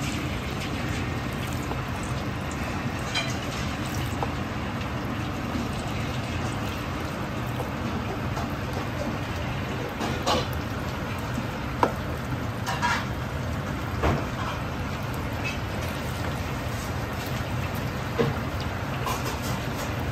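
Egg-and-starch-coated chicken thigh pieces deep-frying in a wok of hot oil: a steady sizzle over a steady low drone, with a few short sharp pops and clacks as more pieces are dropped in.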